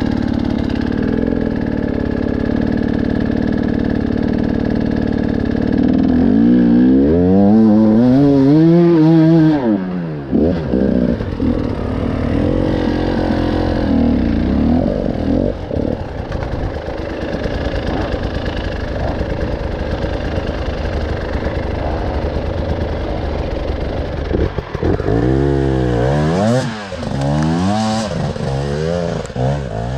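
Motorcycle engine running steadily, revved up and back down about seven seconds in, then blipped several times near the end.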